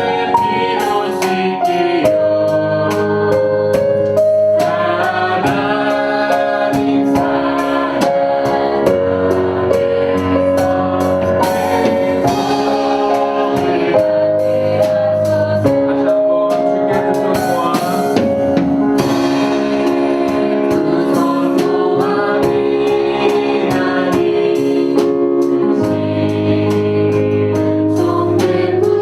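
Background music: a Sunday church praise song, with a group of voices singing over instrumental accompaniment and a steady beat.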